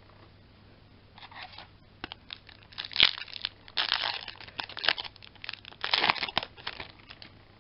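Foil wrapper of a Yu-Gi-Oh booster pack being torn open and crinkled by hand: a run of sharp crackling rips, loudest about three seconds in and again near six seconds.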